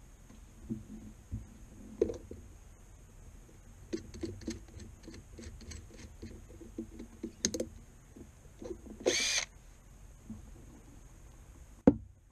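Cordless drill runs in one short burst of about half a second, its whine bending in pitch, amid scattered small clicks and knocks of tools and parts being handled on the console's wooden panel. A single sharp knock near the end is the loudest sound.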